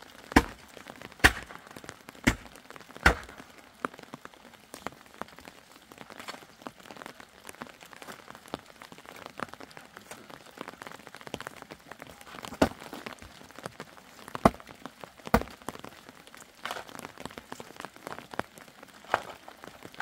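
Light rain: a faint steady patter with scattered drops landing in loud, sharp, irregular taps.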